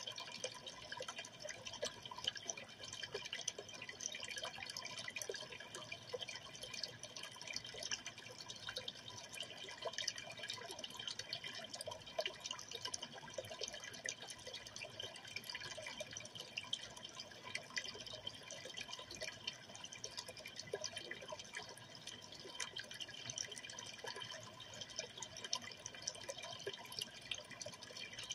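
Aquarium water trickling and splashing steadily, with many small drips and pops.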